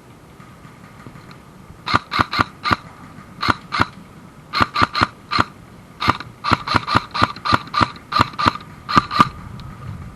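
Airsoft gun firing short rapid bursts of sharp cracks, starting about two seconds in and stopping about nine seconds in.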